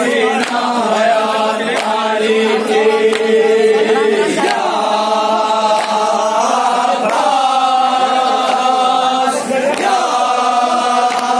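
Group of men chanting a Shia noha (Muharram lament) together in long, held lines, with a steady beat of open-hand chest-beating (matam) slaps under the voices.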